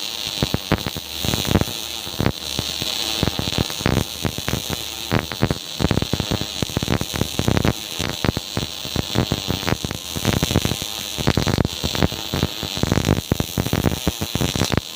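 MIG welding arc crackling steadily, a dense run of rapid, irregular pops over a constant hiss.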